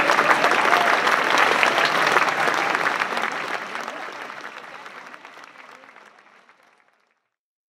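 Audience clapping at the end of a choir song, fading out steadily and gone about seven seconds in.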